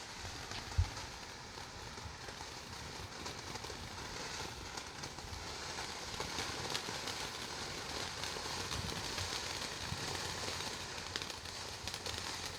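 A lit ground firework, such as a fountain, spraying with a steady hiss and faint crackling that swells slightly, with a single short thump about a second in.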